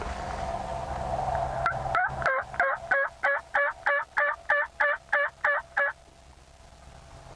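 Wild turkey yelping: a run of about a dozen evenly spaced calls, about three a second. The run starts about two seconds in and stops about two seconds later.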